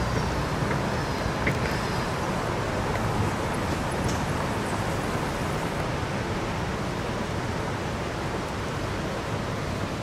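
Steady outdoor background rumble and hiss with no clear birdsong, in the manner of wind and distant traffic.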